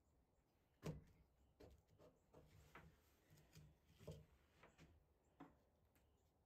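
Near silence with faint, scattered clicks, taps and rubs of hands handling a small knife blank with pinned wooden handle scales on a workbench; the sharpest click comes about a second in, another just after four seconds.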